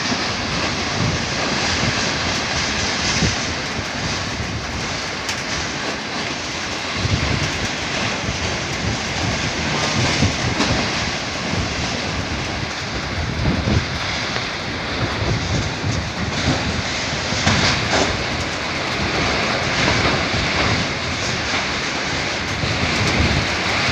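Strong, gusty storm wind rushing steadily, with deep irregular buffeting where the gusts hit the microphone.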